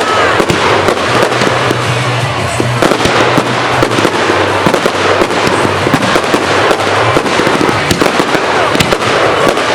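Fireworks display in full barrage: a dense, continuous run of bangs and crackling, many sharp reports in quick succession with no pause.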